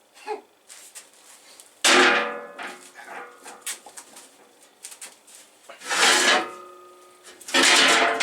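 Three loud hammer strikes, about two seconds in, six seconds in and near the end, each ringing on briefly, with a few lighter knocks between them.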